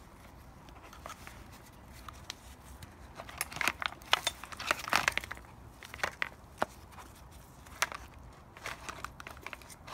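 Red plastic casing of a dismantled Black & Decker Alligator chainsaw being handled, with scattered clicks, knocks and rustles as the motor wire is fed through a gap in the casing. The handling sounds start a few seconds in and thin out near the end.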